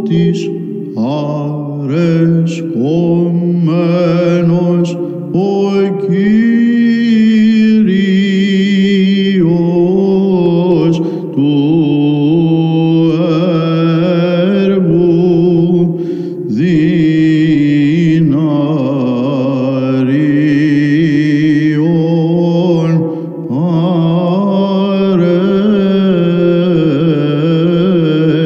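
Byzantine chant: a melody sung over a steady held drone, pausing briefly every few seconds.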